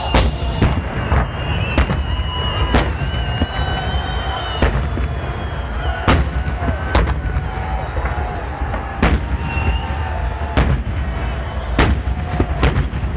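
Festive fireworks salute: about a dozen sharp bangs at irregular intervals, a second or so apart, over a steady low rumble, with thin wavering whistling tones in the background.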